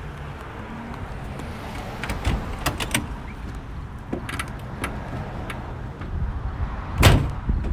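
Clicks and knocks from a 1993 Chevy G20 van's door and cab as someone gets in to drive, with a loud thump about seven seconds in, over a low steady rumble.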